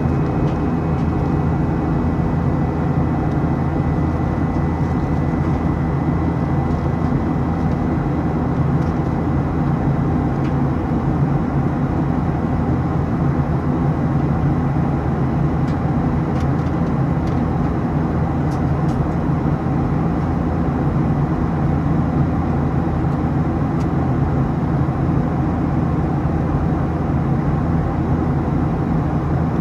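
Steady cabin noise inside a Boeing 737-700 airliner: the rumble of its CFM56-7B jet engines and the rush of air, heard from a forward window seat, with a faint high tone fading out in the first few seconds.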